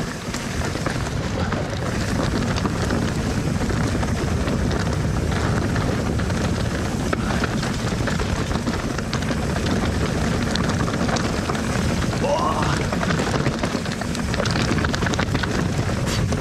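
Wind buffeting the action camera's microphone and the tyres of a steel hardtail mountain bike rolling over loose rock on a fast descent, with a steady low rumble and many small clicks and knocks from the bike.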